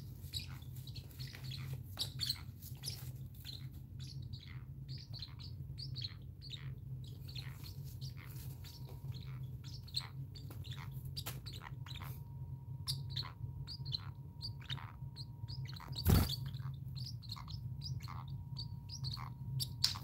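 Pet parrots chirping: rapid, short, high chirps, several a second with brief pauses, from a small blue parrot and a white cockatoo. One sharp thump about sixteen seconds in.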